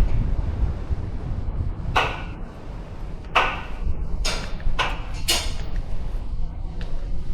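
Cruise ship public-deck ambience: a steady low rumble with several brief, sharp clatters over a few seconds and a faint distant voice near the end.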